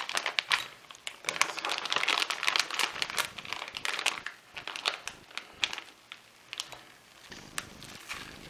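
Thin plastic bag holding chicken pieces crinkling as it is handled and held open. Dense crinkling for the first few seconds, then scattered, quieter crinkles.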